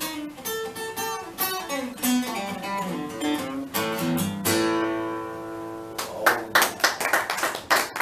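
Solo acoustic guitar playing the closing bars of a country song, ending on one chord left to ring for about a second and a half. About six seconds in, hand clapping starts.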